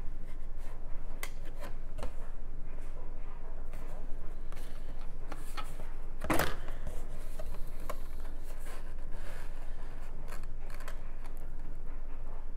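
Plastic miniature sprues being handled and turned over: scattered light clicks and rustles, with one louder rustle about six seconds in.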